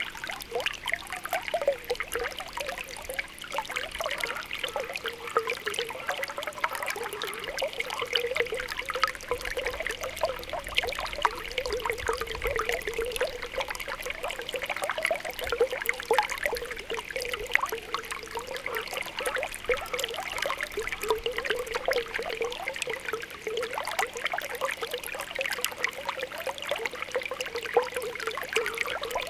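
Spring water welling up with a continuous stream of small bubbling pops and a light trickle, steady throughout.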